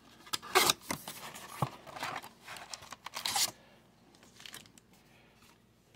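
Cardboard blaster box of trading cards being torn open at its flap, with a few quick rips in the first second. Then the stack of wrapped card packs slides out with a rustling crinkle around three seconds in.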